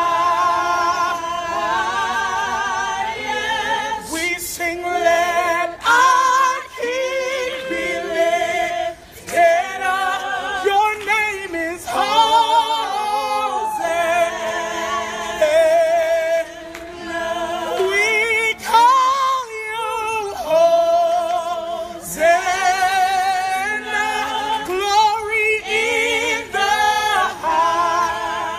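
A woman singing a gospel worship song a cappella, with other voices joining in; the sung lines waver in pitch and break between phrases.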